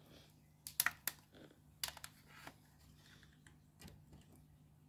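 Several small sharp plastic clicks and taps from handling a clamp multimeter and its test probes while taking a voltage reading, in two clusters about one and two seconds in and a lighter click near the end.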